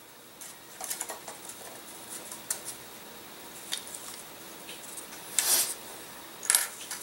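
Thin laser-cut wooden kit parts being handled on a wooden table: light clicks and taps, then a louder scrape about five and a half seconds in and a clack a second later as a long piece is moved and set down.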